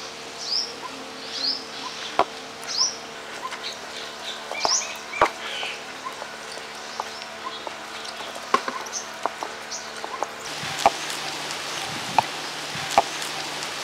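Small birds chirping in short, repeated falling calls, mostly in the first two thirds. Under them come scattered sharp knocks and grating from a conical stone pestle being turned and tapped in a stone grinding mortar as prawns are ground.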